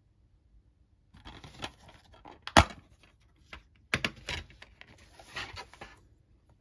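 A plastic DVD case being handled and snapped open with one loud, sharp click, followed by smaller plastic clicks and rattles as the disc is pried off the case's centre hub.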